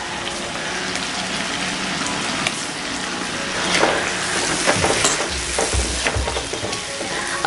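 Wet ground masala paste sizzling in hot oil in a kadhai, stirred with a silicone spatula. Scraping strokes start about halfway through, with a few dull knocks around five to six seconds in.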